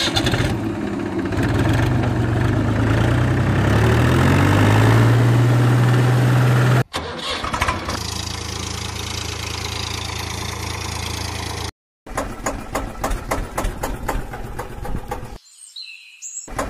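Dubbed tractor engine sound effect: an engine starting and revving up and down, cut off abruptly about seven seconds in. Then the engine runs steadily, and after a brief break comes a rapid, regular knocking engine beat.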